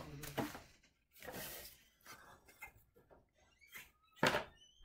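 Faint household noises of people coming into the home: scattered clicks and rustling, with a sharper knock about four seconds in.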